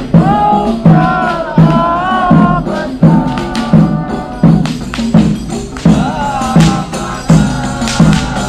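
Rodat procession music: a group singing a chanted melody over hand drums struck in a steady beat, about three strokes every two seconds.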